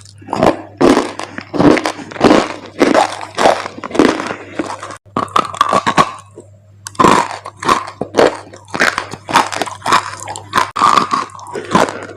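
Close-miked biting and chewing of dry clay: crisp crunches at roughly two a second, with a short pause about six and a half seconds in. A steady low hum runs underneath.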